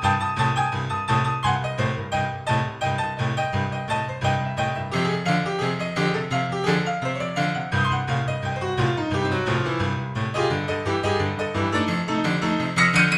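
Background music: a fast run of quick, evenly spaced notes over a low held bass.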